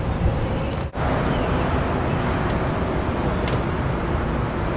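Steady low rumble and hiss of outdoor rooftop background noise, with a brief dropout about a second in.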